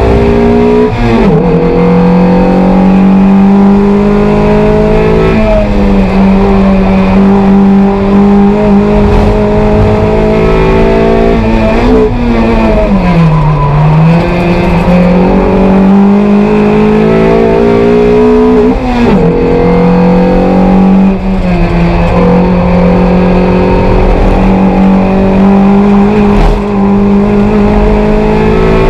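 Toyota MR2 race car's engine heard from inside the cabin, pulling hard under race throttle. Its note climbs slowly through each stretch and drops sharply about five times, with the deepest dip around the middle before it climbs again.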